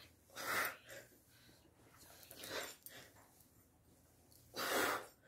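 A woman's hard, noisy breaths as she strains through sit-ups, a heavy exhale about every two seconds, three in all.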